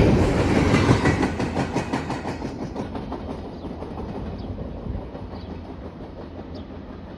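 CN 301 train passing, its wheels clicking over the rail joints in a steady rhythm, the sound fading steadily as the train moves away.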